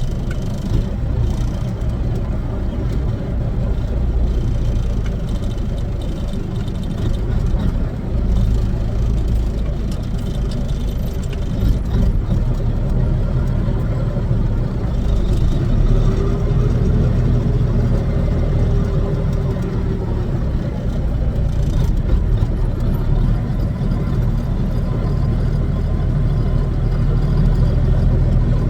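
Kenworth W900's Caterpillar diesel engine running steadily, a low drone with no breaks.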